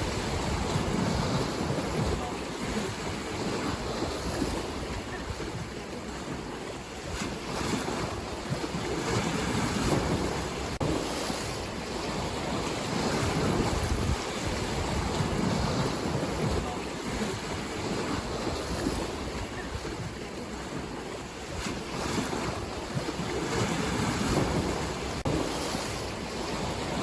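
Ocean waves breaking and washing in, a steady rush that swells and eases every several seconds, with wind rumbling on the microphone.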